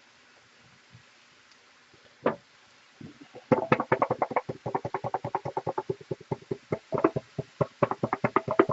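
Pepper shaker shaken over the frying pan of browning beef: a single knock, then a fast run of rattling taps, several a second, starting about three and a half seconds in.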